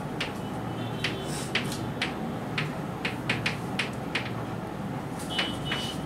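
Chalk writing on a blackboard: an irregular run of short taps and scratches as each letter is stroked onto the board.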